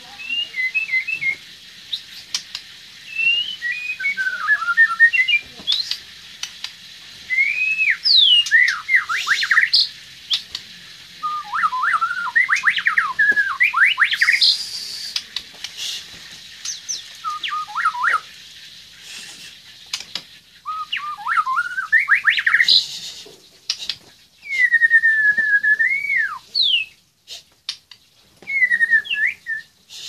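White-rumped shama singing: bursts of varied whistled phrases, with fast rising and falling notes and trills, a few seconds each and separated by short pauses, with sharp clicks scattered between them.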